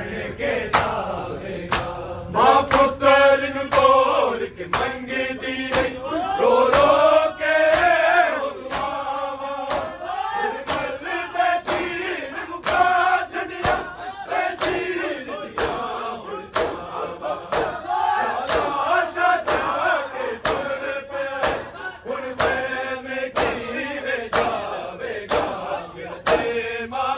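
A crowd of men chanting a noha together, over a steady beat of matam: sharp open-palm chest-beating slaps, about three every two seconds.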